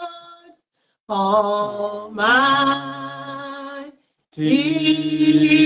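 Worship singing: a voice holds long notes that slide between pitches over a low steady tone. The sound drops out completely twice, briefly, about half a second in and again near four seconds.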